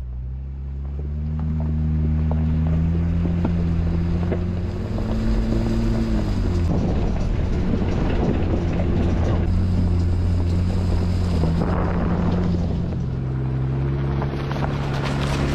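Jeep Wrangler JL engine pulling uphill, its pitch rising, dropping about six seconds in, then climbing again near the end. Tyres crunch and tick over gravel and small rocks through the middle of the climb.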